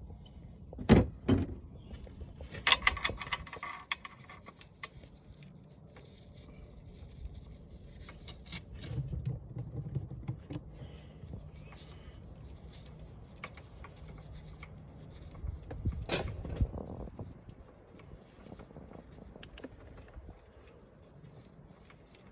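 Scattered sharp clicks, scrapes and handling noises of a socket and the oil drain bolt as the bolt is unscrewed, the sharpest clicks about a second in and again around sixteen seconds in.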